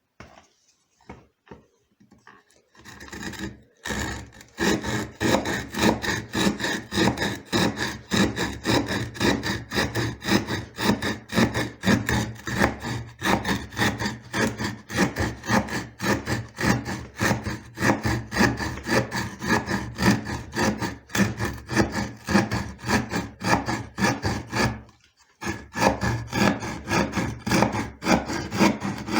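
A folding knife's small saw blade sawing through wood by hand in rapid, even back-and-forth strokes. The strokes start about four seconds in and break off briefly near the end before resuming.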